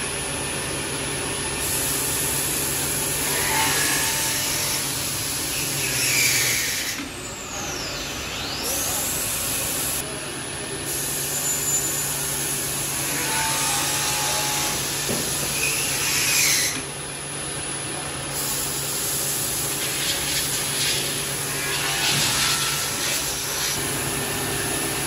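Electric drill spindles on a Yaskawa robot arm running and drilling holes in an aluminium roof rail, over a steady machine hum. A high hissing whine cuts in and out several times, with a few brief sharper squeals.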